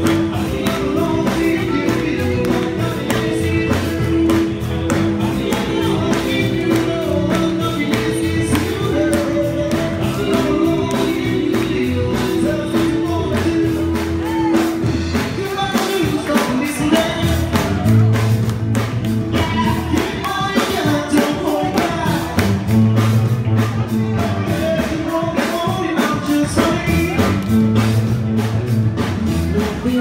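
Upbeat dance music with a singer over a steady beat.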